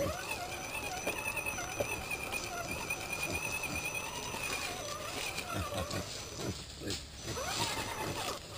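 Electric motor and geartrain of an Axial Jeep Wrangler radio-controlled crawler whining as it drives, the pitch rising and falling with the throttle.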